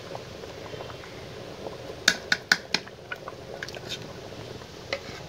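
Metal spoon stirring spice paste into a pot of simmering khichuri, wet squishing under a steady low bubbling. A cluster of sharp clicks of the spoon against the pot comes about two seconds in, with a few lighter taps later.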